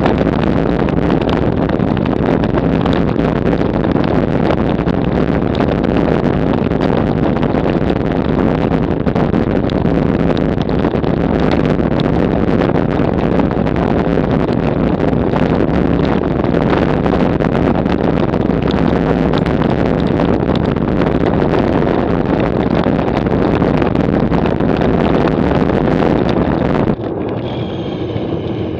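A road bike shaking hard over cobblestones at about 30 km/h: a dense, continuous rattle of knocks from the tyres and frame, mixed with wind on the microphone. About 27 s in, the racket suddenly drops and thins as the bike rolls off the cobbles onto smooth tarmac.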